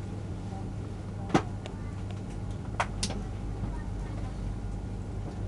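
Steady low hum inside a CRH1 high-speed train carriage, broken by a few sharp clicks: one loud click about a second and a half in, and two more close together near the middle.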